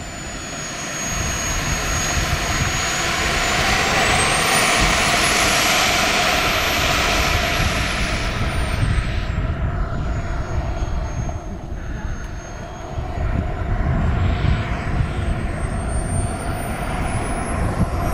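Radio-controlled model jet's engine running as it taxis: a high whine that rises over the first few seconds, sinks back around the middle and climbs again near the end, over a steady rushing noise that swells along with it.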